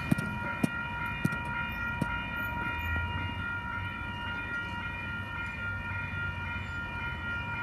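Electric passenger train, a Sydney Trains H-set "Oscar", approaching the platform. There is a steady whine of several held tones over a low rumble that swells and eases, with a few light clicks.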